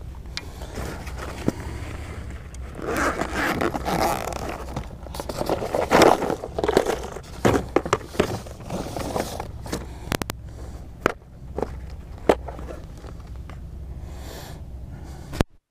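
Camouflage soft tackle bag being unzipped and clear plastic lure boxes handled: zipping, rustling and scraping of fabric and plastic, with a few sharp clicks, over a steady low rumble. The sound cuts off suddenly near the end.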